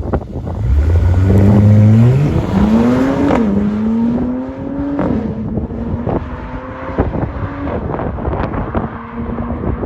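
Mercedes-AMG C43's twin-turbo V6 through an AWE Track Edition exhaust with no mufflers, accelerating hard. It rises in pitch, drops sharply at an upshift about three seconds in, rises again, then settles to a steadier run.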